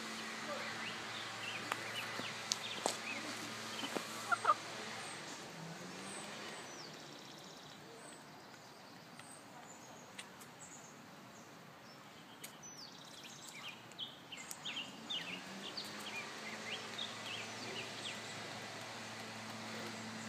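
Chicken pecking maggots off asphalt: sharp taps of its beak on the ground, bunched in the first few seconds and again in the second half, with short high chirps.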